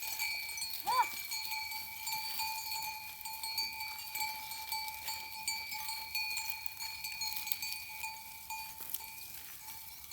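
Livestock bells on grazing goats and sheep clinking and jingling continuously over a steady high ringing tone, with one short bleat about a second in.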